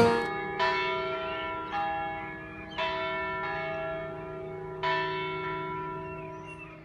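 Church bell tolling: four slow strikes about a second apart, the last after a longer pause. Each strike rings on and fades.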